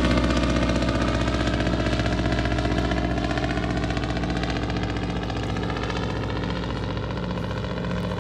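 An engine running steadily at a constant speed, its loudness easing off slightly over the seconds.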